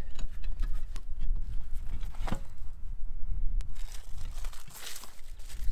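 Crinkling and rustling of a self-adhesive lead-free flashing sheet as it is pressed and shaped by hand around a solar panel roof hook, with irregular small clicks and a short scrape about two seconds in. A low wind rumble runs underneath.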